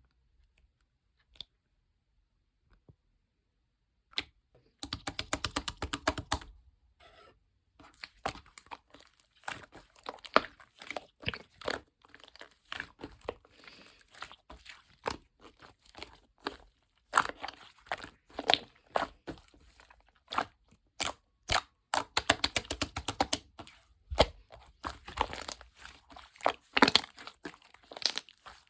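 Slime being handled and kneaded by hand, giving quick irregular crackling, popping clicks. Near silence with a few single clicks for about the first five seconds, then the crackling starts and keeps going.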